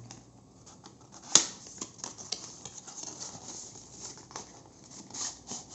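Hands unwrapping and opening product packaging: plastic and box rustling, with scattered light clicks and one sharp snap about a second and a half in.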